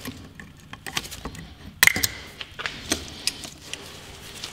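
Small metal clicks and scrapes of a tool prying the piston pin circlips out of a scooter engine's piston. There is one sharper metallic click with a brief ring about two seconds in.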